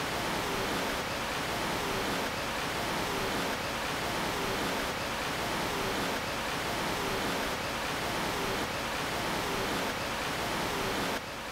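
Steady, loud hiss of broadband noise, like rushing water or wind, with slight shifts about once a second; the level drops suddenly near the end.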